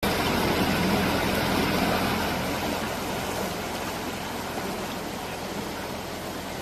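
Fast-flowing floodwater rushing across a road in a steady, noisy torrent, easing a little in loudness over the seconds.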